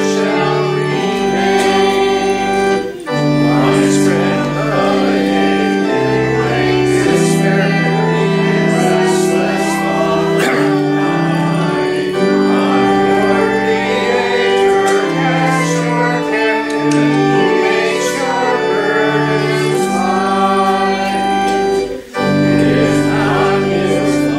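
A congregation sings a hymn in unison over steady organ accompaniment. There are short breaks between lines about three seconds in and near the end.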